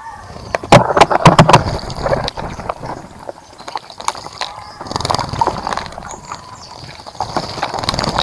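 Birds splashing in a bird bath: bursts of water splashing and flicking, with a quick run of sharp splashes about a second in and more splashing around five and eight seconds.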